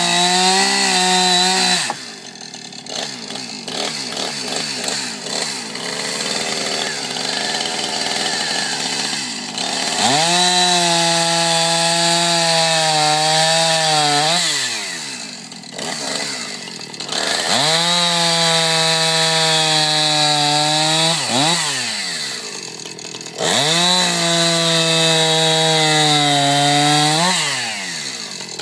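Two-stroke chainsaw engine running at high revs while cutting wood, held at full throttle in three stretches of about four seconds each, its pitch dropping and climbing back between cuts. A quieter, more uneven stretch of running comes before the first of them.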